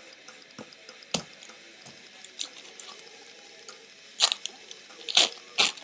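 Trading cards being handled and flipped through one at a time, making a few short, sharp snaps and taps at irregular intervals. The snaps are loudest near the end.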